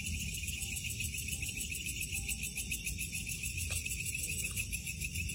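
Night insects chirring steadily in fast, even pulses at two pitches, one high and one very high, over a low rumble. A single faint click comes a little after halfway.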